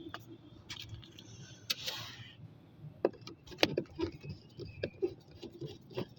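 Scattered clicks and knocks of hands and tools working loose a car's AC blower fan, with a short rustling hiss about two seconds in and a low hum underneath.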